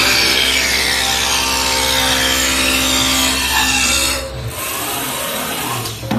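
Automatic-feed CNC wood lathe turning a square wooden blank into a round spindle: a loud, rough cutting noise over a steady motor hum. About four seconds in, the cutting drops away as the pass ends, leaving the quieter machine running.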